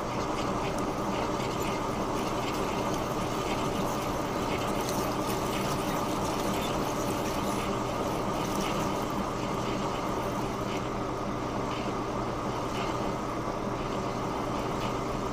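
Metal lathe running steadily with a radius tool cutting the groove of a hardened 4140 steel sheave under hand feed. The steady hum of the motor and gearing carries a light, irregular ticking of chips coming off the cut.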